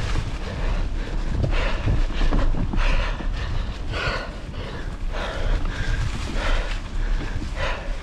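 Wind buffeting the microphone with a steady low rumble, over a cyclist's heavy, rhythmic breathing, with a hard breath roughly every second.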